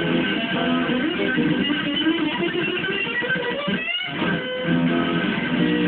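Amplified electric guitar strumming chords in a steady rhythm, with a brief break and a short rising slide about four seconds in.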